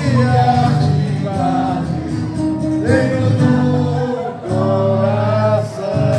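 Live singer with guitar performing a birthday song over an amplified backing, holding long sung notes.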